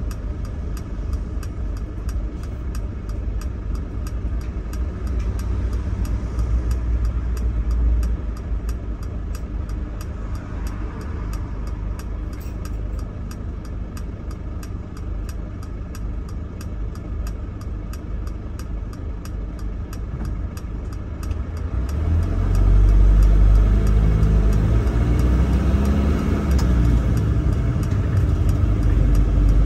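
Bus engine idling with a low, steady rumble while the bus stands still, then revving up and getting louder about two-thirds of the way through as the bus pulls away.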